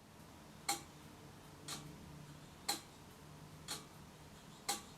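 Analog clock ticking once a second, five ticks, alternating louder and softer like a tick and a tock.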